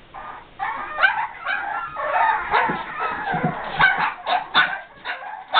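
A litter of 5½-week-old Boston Terrier puppies screaming together: many short, high cries overlapping without a break. The puppies want to be let out to play.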